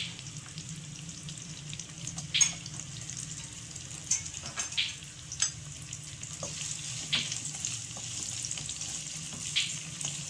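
Sliced onions frying in oil in a nonstick kadai, freshly added and starting to soften: a steady sizzle with scattered sharp crackles and pops.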